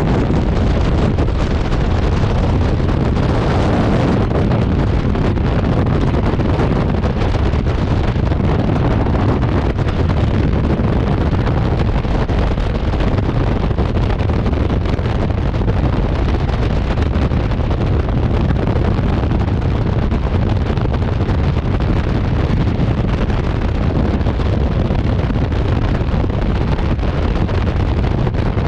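Skydiving freefall wind blasting across the camera's microphone: a loud, steady rushing buffet, heaviest in the low end.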